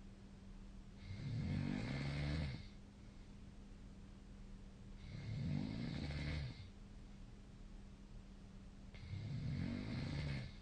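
Young woman's heavy mouth-breathing snoring during sleep: three loud snores about four seconds apart, each lasting about a second and a half.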